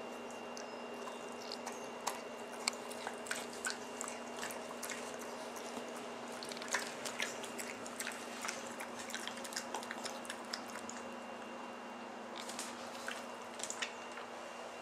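A pug chewing and smacking on a piece of watermelon: a run of short, wet clicks and smacks, with a steady faint hum underneath.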